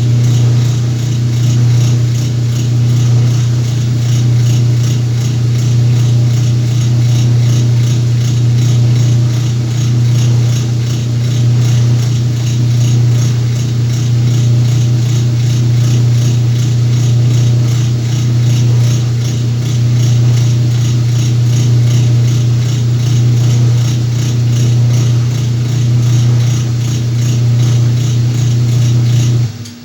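Whirlpool washing machine running under a load of sacks: a steady motor hum with a fast, even rattle. It cuts off suddenly just before the end.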